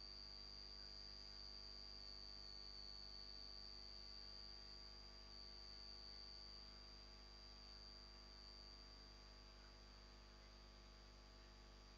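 Near silence: a faint, steady high-pitched electronic whine over a low mains hum.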